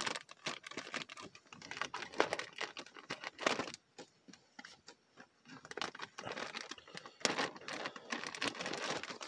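Clear plastic packaging bag crinkling and crackling in irregular clicks as the plush toy inside is handled, with a quieter stretch around the middle.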